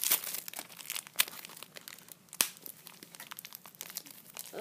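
Plastic blind-bag packaging crinkling and tearing as it is pulled open by hand. The crinkling is dense at first, then thins to scattered crackles with two sharp snaps.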